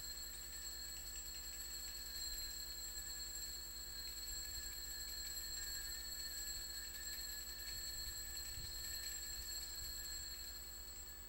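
Altar bells rung continuously as the monstrance is raised in benediction: a steady, shimmering high ringing that fades out near the end, over a low electrical hum.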